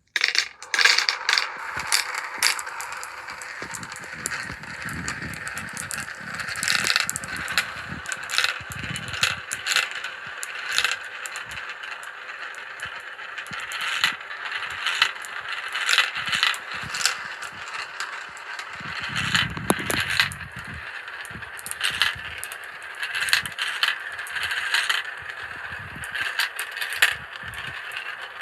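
Marbles rolling and spinning around the funnels of a marble run: a continuous rolling rattle with many sharp clicks as marbles knock together and drop, and a short deeper rumble about two-thirds of the way through.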